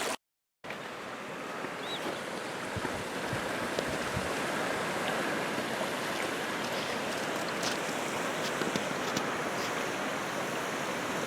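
Steady rush of a running stream, after a brief silent gap near the start.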